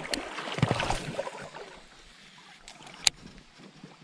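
Steady rush of flowing creek water with a few scattered clicks and knocks, and one sharp click about three seconds in.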